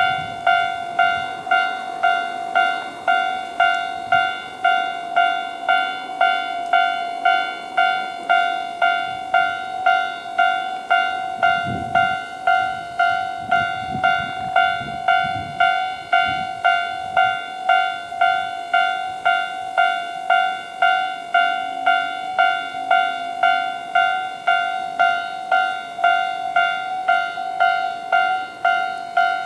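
Japanese railway level crossing's electronic warning bell ringing in the standard tone at a slow tempo, an even pulse of about three strikes every two seconds. A few low thuds come about halfway through.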